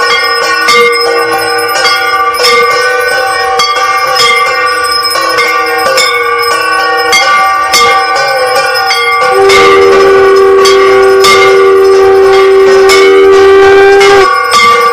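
Hand bells ringing over and over, struck about twice a second, with their tones ringing on. About nine seconds in, a long steady blown note joins and holds, then breaks off shortly before the end.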